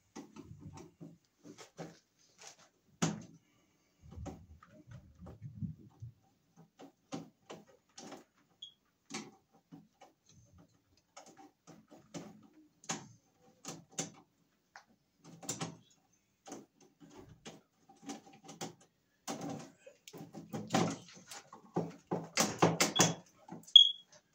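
Scattered small clicks, scrapes and light knocks of a hand tool and stiff electrical wires being worked inside an open metal breaker panel, getting busier and louder near the end with a quick run of sharper clicks.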